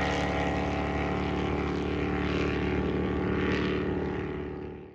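A high-performance boat engine running steadily at speed, with water hiss. It fades out over about the last second.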